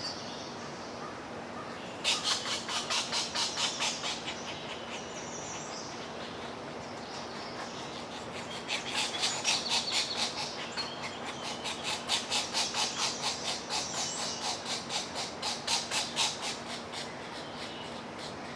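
Pileated woodpeckers calling in rapid rhythmic series of harsh notes, about five or six a second, in three bouts. Short higher calls fall between the bouts, over a faint steady low hum.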